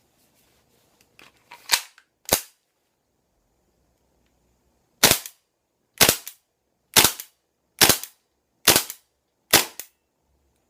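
Gas blowback airsoft gun being test-fired: eight sharp pops with a short ring after each. There are a couple of light clicks first, then two shots about half a second apart, a pause of nearly three seconds, and six shots at about one a second.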